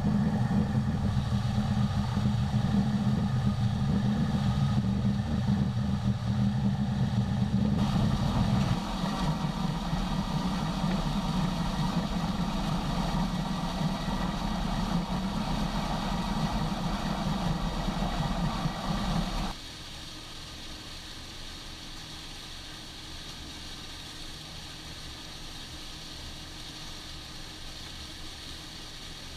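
Heavy farm machinery running steadily. The sound changes abruptly about eight seconds in, then drops sharply about two-thirds of the way through to a quieter, steady machine noise.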